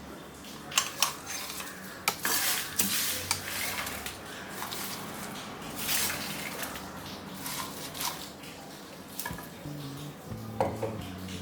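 A metal spoon clinking and scraping against a pan and a mixer-grinder jar as crisp roasted curry leaves and dried red chillies are spooned in, in scattered short clicks and scrapes.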